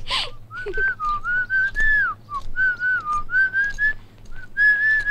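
A person whistling a tune: a clear single-note melody in short phrases that glide up and down, starting about half a second in. A short hiss comes right at the start.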